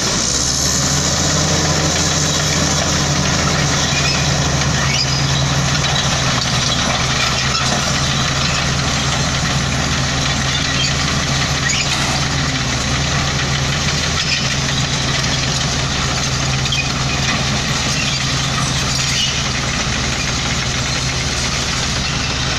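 Heavy diesel engine of earthmoving equipment running steadily at an even, low pitch, with a constant level throughout.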